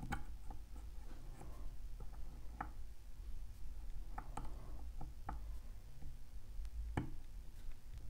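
Faint, scattered clicks and scrapes of a lock pick working the pins of a Mul-T-Lock lock, with a sharper click about seven seconds in, over a low steady hum. The picker is tentatively lifting a pin with the lock held in a false set.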